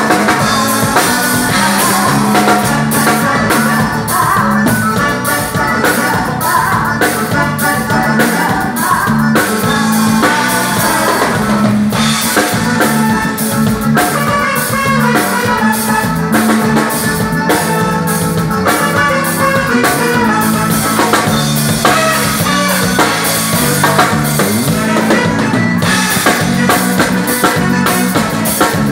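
Live forró band playing a full song at soundcheck, with drum kit and percussion keeping a steady beat under a singing voice.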